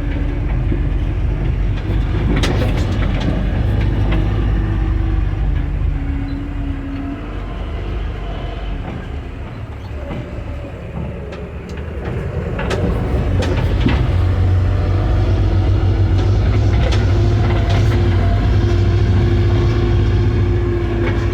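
John Deere backhoe's diesel engine running under way, with sharp clanks and rattles from the machine. The engine eases off for a few seconds mid-way, then comes back up to a louder steady run about 13 seconds in.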